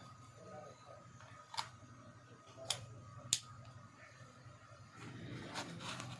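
Five sharp clicks at uneven gaps, hard objects being handled, over a faint steady hum.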